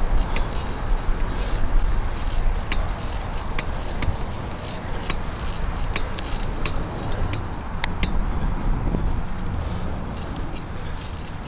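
Riding noise of a recumbent bicycle moving at about 14 mph: a steady low rumble of wind and road, with scattered small clicks and rattles.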